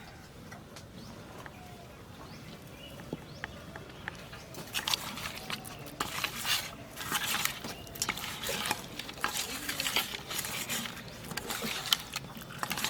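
Hands mixing raw tilapia pieces with salt, turmeric, chilli powder and mustard oil: irregular wet clicks and squelches that begin about four seconds in and go on busily to the end.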